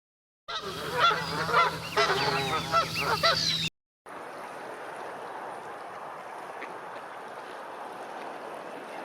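Domestic geese honking, several overlapping calls for about three seconds, followed by a steady rushing noise with no calls.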